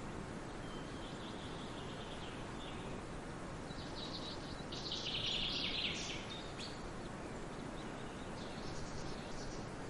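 Forest ambience: a steady background hiss with small birds chirping, a busy flurry of chirps about four to six seconds in and a few more near the end.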